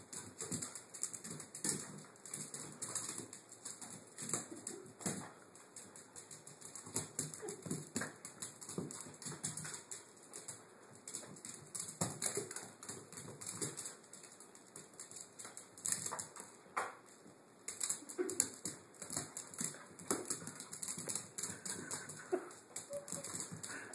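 A puppy's claws clicking and skittering on a tiled floor in quick, irregular runs as it scrambles, turns and pounces.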